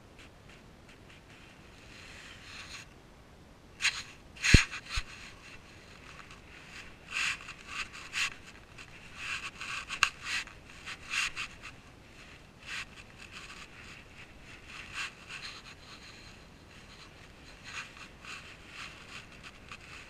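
Irregular scraping and rubbing sounds, with a sharp knock about four and a half seconds in.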